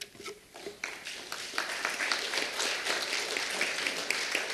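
Audience applauding: a few scattered claps at first, swelling into full, steady applause about a second and a half in.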